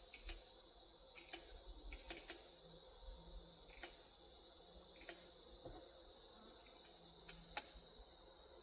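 Crickets chirping in a steady, evenly pulsing high chorus. A few faint clicks sound over it, the sharpest about seven and a half seconds in.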